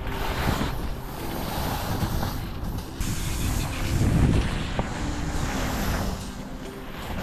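Wind buffeting the microphone of a skier moving fast downhill, with the skis hissing through powder snow. The rumble swells to its loudest about four seconds in.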